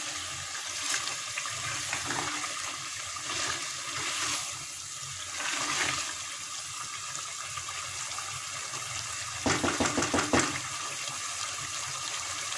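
Mutton karahi bubbling and sizzling over a high gas flame as its stock cooks off, stirred with a spatula in an aluminium pot. A brief burst of knocks and scrapes about ten seconds in is the loudest part.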